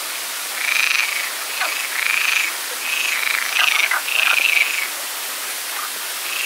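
Frogs calling: a string of short croaks, about one a second, with a pause near the end, over a steady background hiss.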